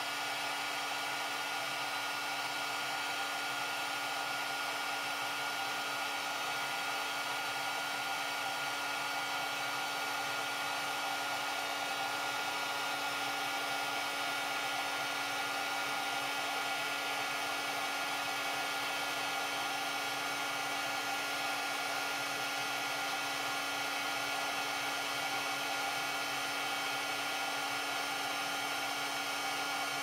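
Electric heat gun running steadily, its fan blowing with a constant motor hum, heating a heat-shrink butt connector so the tubing shrinks onto the wire.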